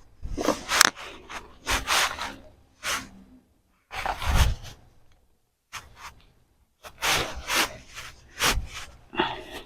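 Digging and scraping through loose soil in a fabric grow bag during a sweet potato harvest: a string of rough scraping rustles at an irregular pace, with short pauses between them.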